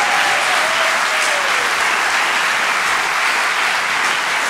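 Theatre audience applauding steadily, a dense, even clapping with the panel on stage joining in.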